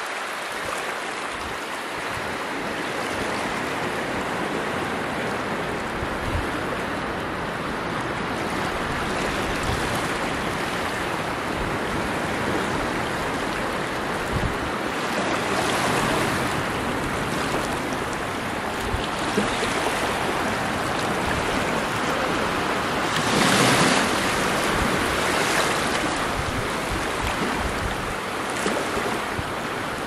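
Surf washing onto the beach with wind on the microphone: a steady rush, with a louder wave breaking about halfway through and a stronger one about three-quarters of the way through.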